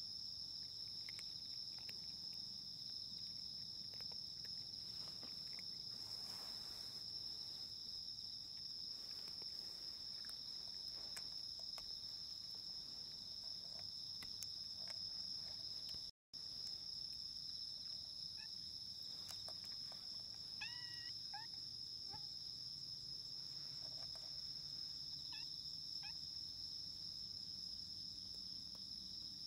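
A steady, high chorus of insects chirring without a break. A few faint short chirping calls come in about two-thirds of the way through. The sound cuts out for a moment near the middle.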